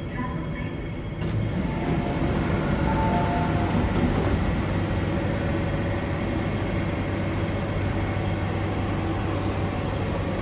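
MTR Kwun Tong Line C-train slowing to a halt at a platform behind screen doors, then standing with its doors open, giving off a steady train hum. The sound gets louder about a second in and holds level after that.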